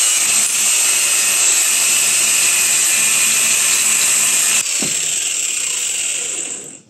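Angle grinder with a cut-off wheel cutting through a stripped bolt held by a metal collar in a transmission mount: a loud, steady, high grinding. It dips briefly about four and a half seconds in, runs on a little quieter, and cuts off near the end.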